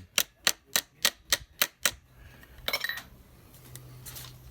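Quick light metal-on-metal taps of a small ball peen hammer peening over a rivet on a Model T transmission band, about seven taps in the first two seconds, followed by a brief scrape a little under three seconds in.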